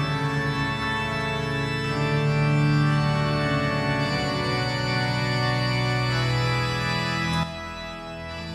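Background organ music playing held chords, which drops in level a little after seven seconds in.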